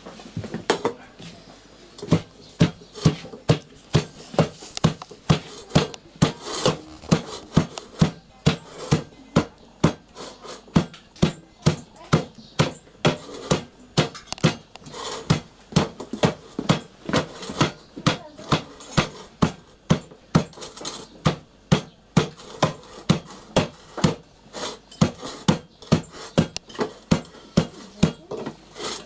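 Wooden masher pounding chopped greens in an enamel pot: a steady run of dull thuds, about two or three a second, starting a second or two in.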